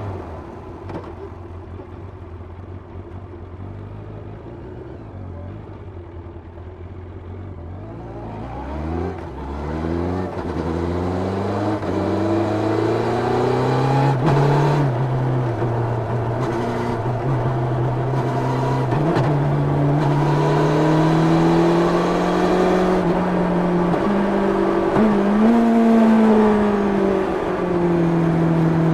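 Onboard sound of a 1990 Yamaha FZR 600's inline-four engine through its stock exhaust. It runs at low, steady revs for the first several seconds, then the revs climb in several quick steps about eight seconds in, and it holds higher revs with slow rises and falls after that.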